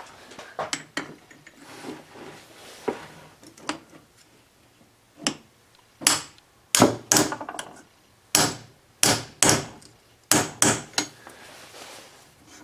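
A hammer tapping a steel socket set on a stuffing box gland, driving the part down onto transfer screws so they mark the bolt-hole centres. Light metallic clicks of the parts being handled come first, then about a dozen sharp hammer blows, most of them in pairs.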